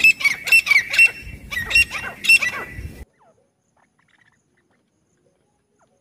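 Grey francolins calling: a quick run of shrill, repeated notes sweeping up and down in pitch, which cuts off suddenly about halfway through.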